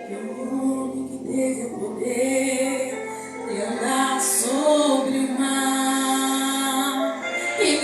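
A woman singing a slow worship song in long held notes with vibrato, sliding between pitches, over a sustained instrumental accompaniment.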